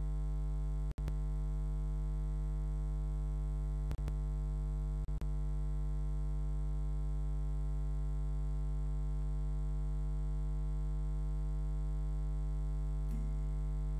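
Steady low electrical buzzing hum from the sound system, unchanging in pitch and level. It drops out for an instant about a second in and twice more around four and five seconds.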